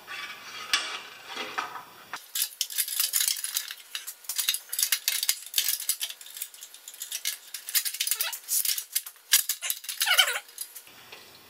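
Small metal tools and engine parts clinking and rattling as they are handled, a dense run of quick, bright clicks starting about two seconds in and stopping near the end.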